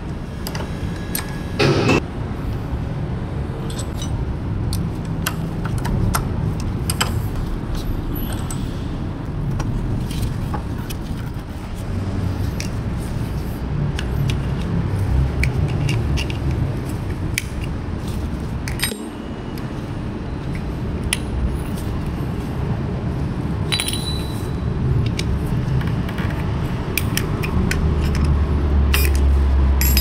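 Scattered light metallic clicks and clinks of a screwdriver working against a Honda CB150R front brake caliper as it pries between the pads, over a steady low background rumble.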